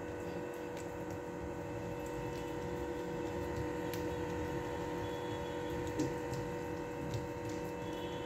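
Steady machine hum made of several constant tones, like a running motor or appliance in the room, with a few faint clicks and a soft thump about six seconds in.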